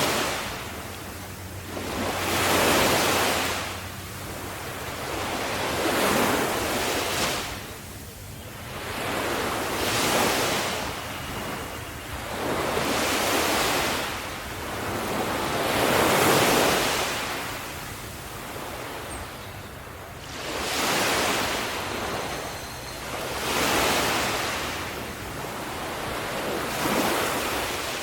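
Sea waves breaking on a shore, each wave swelling and washing out about every three to four seconds in a steady rhythm.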